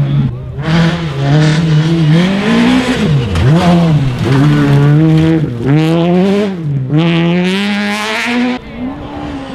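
Peugeot 208 rally car's engine revving hard on gravel, its pitch climbing and dropping several times as the driver lifts and changes gear. Gravel spatters as the car slides past near the end, then the sound cuts off suddenly.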